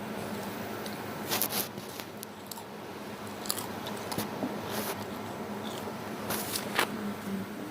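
Someone biting into and chewing crunchy potato chips: sharp crunches about a second and a half in, again around three and a half to five seconds, and twice near the end, with quieter chewing between.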